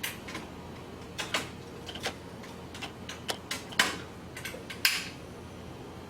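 Irregular light clicks and taps of kitchen utensils and dishes being handled, about ten sharp knocks spread unevenly with a low steady background.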